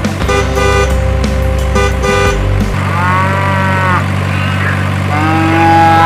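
Cow mooing sound effects: two drawn-out calls that rise and then fall, about three seconds in and again near the end. Before them, a stuttering, pulsing tone plays for the first couple of seconds, over a steady background music bed.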